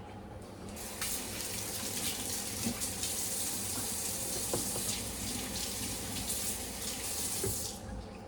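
Kitchen tap running into the sink, starting about a second in and shutting off near the end.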